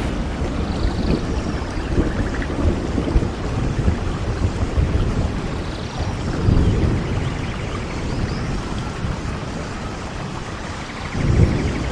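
Steady heavy rain with thunder rumbling low underneath, the rumble swelling about halfway through and again near the end.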